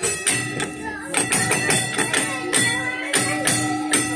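A tune playing, with sustained notes over a sharp percussive beat of about three hits a second.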